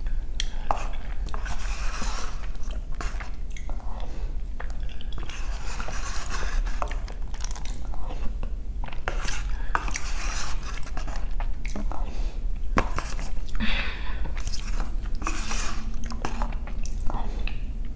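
Close-miked chewing and wet mouth sounds of someone eating spoonfuls of soup-soaked rice, with many small clicks and smacks.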